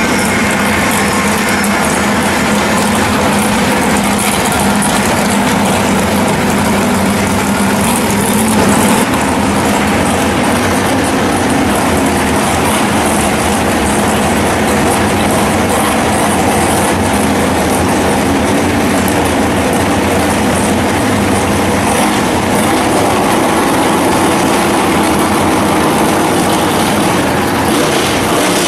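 A 1968 Camaro drag car's engine running at a loud, steady idle at the starting line, with no full-throttle launch.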